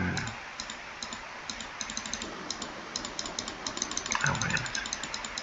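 Quick, irregular clicking of computer keys, several clicks a second, with a short voiced hum about four seconds in.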